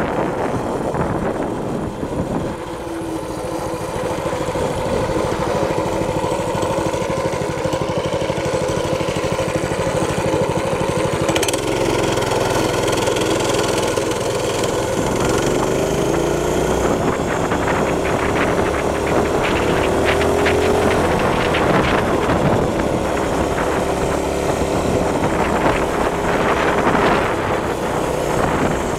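A minibike's 6.5 hp clone single-cylinder four-stroke engine running steadily while riding, its pitch climbing a few times partway through.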